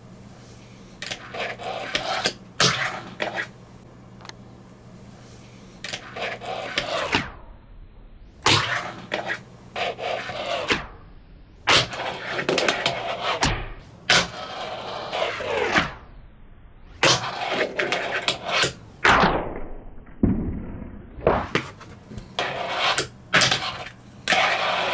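A fingerboard rolling across a desktop, with repeated sharp clacks as the tail pops and the board lands on its wheels, and short quieter gaps between attempts.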